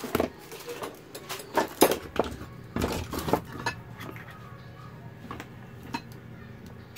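Sharp metallic clinks and clicks of small tools and cable connectors being handled on a workbench. They come in a quick cluster for the first few seconds, then a few isolated taps.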